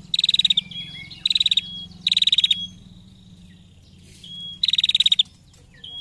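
Female prenjak giving its rapid 'ngetir' trill call: four quick rattling bursts of high notes, each about half a second long, with short thin whistles between them.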